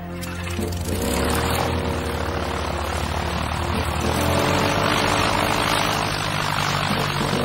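Light single-engine propeller plane's engine running up to power as the plane starts to roll, the propeller noise rising about a second in and staying loud.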